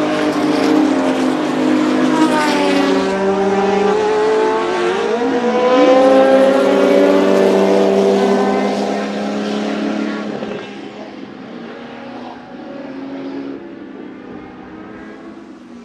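Porsche 935 K3 Kremer's twin-turbo flat-six racing engine running hard on track, its pitch shifting as it passes. It is loudest about six seconds in, then fades away into the distance.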